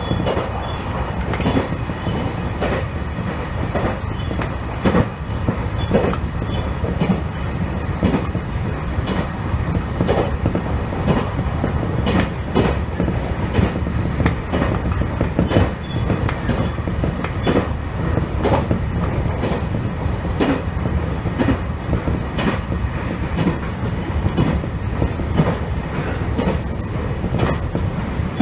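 An electric train running along the line, heard from inside: a steady rumble with frequent clicks and knocks from the wheels over the rail joints.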